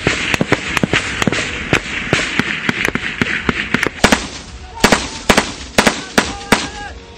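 Rifle fire: a rapid, irregular string of shots for the first three seconds or so, then single shots about half a second apart near the end.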